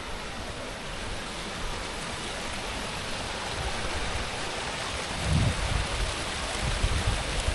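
Rainwater runoff rushing along a drainage channel after a downpour: a steady rush of flowing water that grows slightly louder, with a few low thumps about five to seven seconds in.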